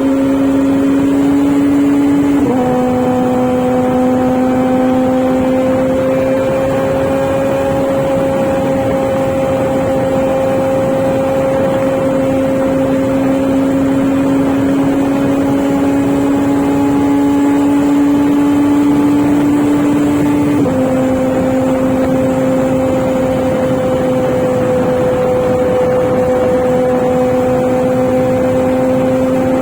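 Motorcycle engine running under steady load while riding, with a steady note. The pitch drops sharply twice, about two seconds in and again about twenty seconds in, as it shifts up a gear, and climbs slowly in between.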